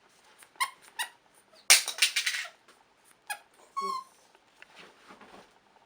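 Squeaky dog toy squeaking in a string of short squeaks, with a quick, loud run of them about two seconds in and a longer squeak near four seconds.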